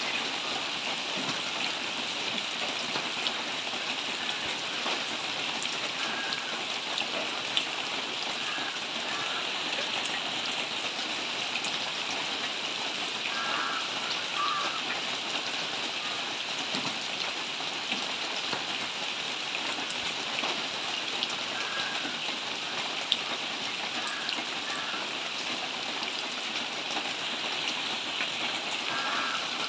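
Steady rain, an even hiss with occasional sharp drip ticks. A faint short two-note sound recurs every few seconds.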